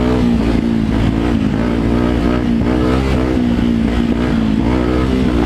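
Motorcycle engine running under way at fairly steady revs, its pitch rising and dipping slightly with small changes of throttle.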